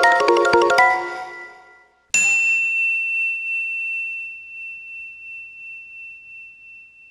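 A quick run of bright mallet-percussion notes fades out. About two seconds in comes a single bell-like ding, a high tone that rings on and slowly dies away with a wavering pulse.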